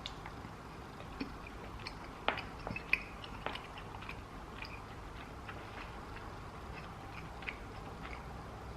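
A person chewing filled sour bubblegum pieces: faint, irregular, wet mouth clicks, with a few louder ones between about two and three and a half seconds in.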